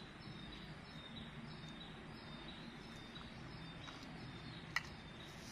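Faint forest ambience: a high chirp from a bird or insect in the surrounding forest repeats about twice a second over a low background hum. A single sharp click sounds a little before the end.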